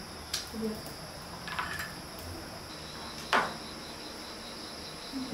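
Steady chorus of crickets and other insects, with one chirping in an even, rapid pulse from about halfway through. A few sharp clicks cut across it, the loudest a little after three seconds in.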